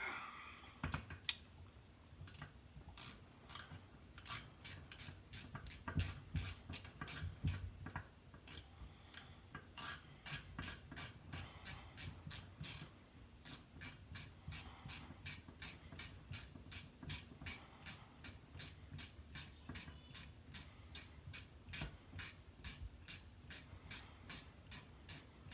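Steady, evenly spaced clicking from hand-tool work on a chainsaw's crankcase screws, about two to three clicks a second, with a few dull knocks in the first several seconds.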